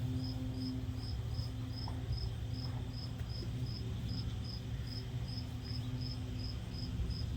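A cricket chirping steadily, short high chirps about two to three a second, over a low steady hum.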